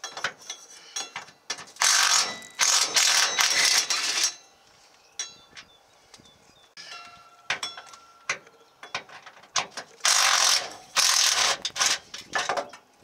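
Cordless impact wrench running in two bursts of about two seconds each as it takes out the upper bolts of an S10 pickup's rear shock absorber, with scattered metal clinks between them as the shock is worked free.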